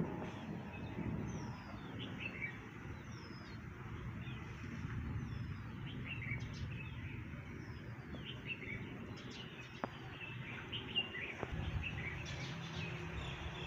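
Several birds chirping, one repeating a short falling call every second or so, over a steady low rumble of outdoor background noise.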